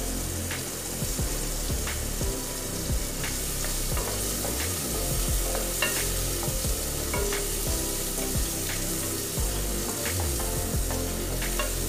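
Food sizzling in hot oil in an aluminium pot while a wooden spatula stirs it, knocking and scraping against the pot again and again.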